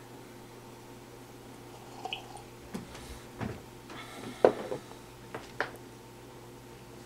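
Short wet mouth sounds after a sip from a mug: swallowing and smacking of the lips, a handful of them starting about two seconds in, the loudest about four and a half seconds in.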